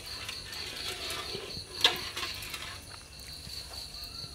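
Steady, high-pitched chirring of crickets, with one sharp click about two seconds in.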